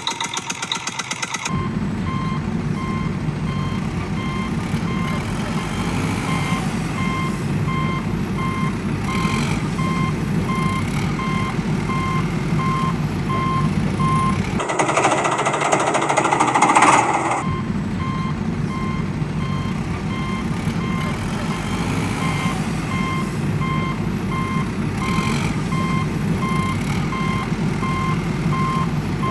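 A vehicle's reversing alarm beeps steadily over a low diesel-like engine rumble. It opens with a rapid pulsing tone that stops about a second and a half in, and there is a hiss of about three seconds around the middle while the rumble drops out.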